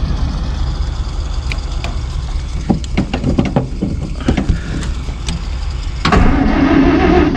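The 1949 Plymouth's flathead six-cylinder engine starting up on starting fluid after years parked. It runs with a low, uneven rumble, with a run of sharp clicks a few seconds in, and gets louder about six seconds in.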